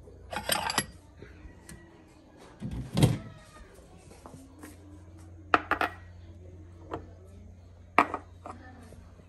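Ceramic bowl clinking against a stack of dishes as it is taken out, then a series of sharp knocks and clacks as the bowl and a glass jar are set down on a tiled counter.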